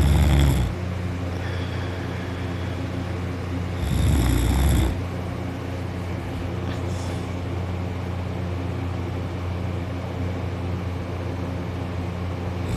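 A person snoring loudly in his sleep over a steady low hum. One snore dies away in the first second, another comes about four seconds in, and the next begins right at the end.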